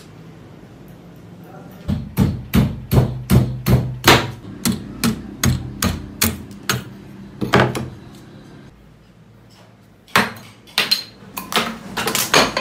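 Restored 19th-century hand adze chopping into an upright wooden post: a run of sharp blows, about two to three a second, lasting some six seconds. After a short pause comes a second, quicker run of blows.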